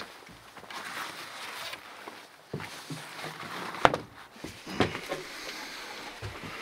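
Footsteps and a few sharp wooden knocks as a person in boots steps over the threshold into a small log cabin and moves about on its floor, the loudest knock about four seconds in, over a faint rustling hiss.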